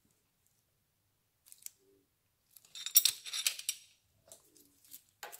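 Metal hand tools clinking: a short, loud jangling rattle about three seconds in, with a few light clicks before and after it.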